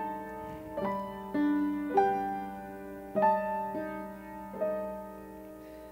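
Piano accompaniment playing a slow interlude between sung lines: notes and chords struck every half second to a second, each ringing on and fading, the last dying away near the end.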